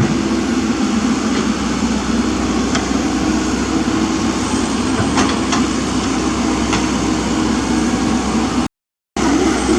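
Komatsu mini excavator engine running steadily, with a few light clicks from the digging work. The sound drops out completely for about half a second near the end.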